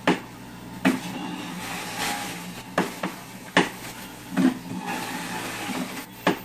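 Jack LaLanne Power Juicer's motor running steadily with a hum and hiss, broken by about six sharp knocks and clatters as apples and beet are fed down the chute and shredded.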